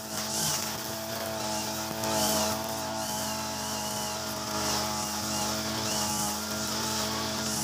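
Mitsubishi backpack brush cutter's engine running steadily while its nylon-line trimmer head cuts through grass, with a hissing swish about once a second as the spinning line sweeps through the grass.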